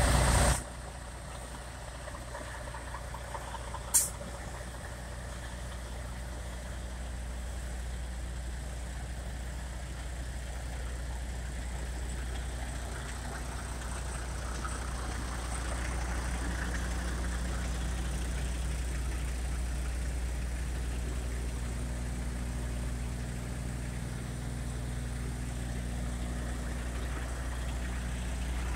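Semi truck diesel engines idling: a steady low drone that grows a little louder through the middle. A short sharp high sound cuts through once about four seconds in.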